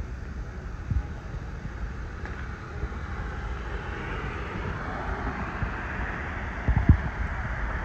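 A car passing on the road, its tyre noise swelling from about halfway through, over a steady low rumble. A dull thump near the end, and a softer one about a second in.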